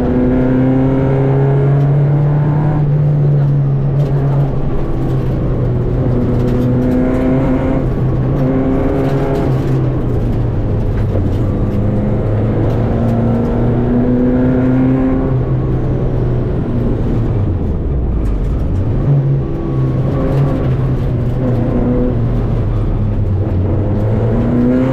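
Renault 5 rally car's engine at stage pace, heard from inside the cabin: it revs up repeatedly with a drop in pitch at each gear change. About 18 seconds in the revs fall away sharply to a low note, then climb hard again.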